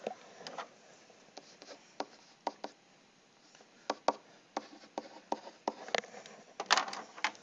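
A pen or stylus writing on a tablet surface: scattered light taps and short scratches, closer together near the end.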